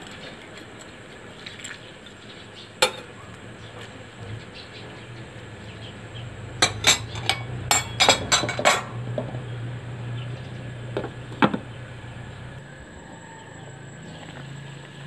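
Metal clinking against a stainless steel cooking pot as shrimp are turned with tongs: a single knock about 3 s in, a quick run of clinks a little past halfway, and one more knock near 11 s, over a low steady hum.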